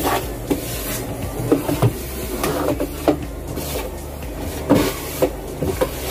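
Canister vacuum cleaner running with a steady drone, with irregular knocks and clatters from handling the hose and tools against the furniture.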